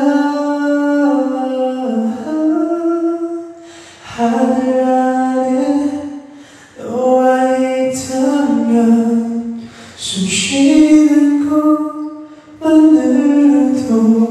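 A young man singing a cappella into a handheld microphone, with no accompaniment: long held notes in phrases broken by short breaths.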